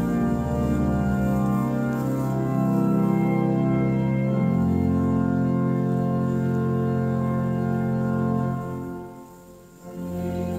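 Church organ playing slow held chords that change every second or two. It breaks off briefly about nine seconds in and then starts again.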